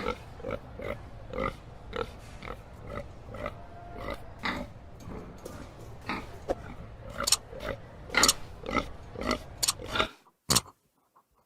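Pig grunting in short repeated grunts, about two a second, growing louder and sharper near the end. The sound then cuts off suddenly, with one brief grunt after.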